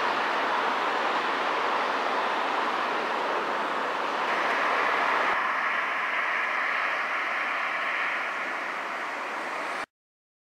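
Steady outdoor background noise, an even hiss without any distinct event. It changes at a cut about five seconds in and stops abruptly near the end.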